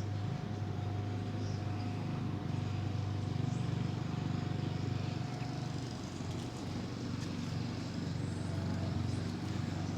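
Steady low rumble of road traffic, with a faint steady hum running through it.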